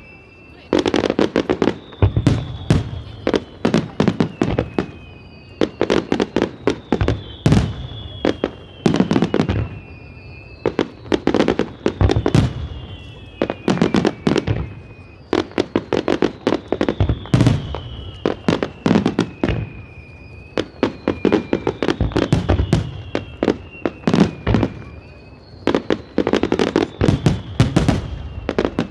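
Fireworks display: dense volleys of shell bursts and crackling reports. They come in rapid clusters every two seconds or so.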